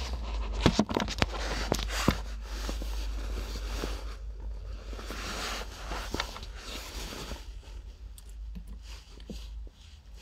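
Handling noises: a few sharp clicks and knocks in the first two seconds, then several seconds of rustling that fades away, with a few light ticks near the end.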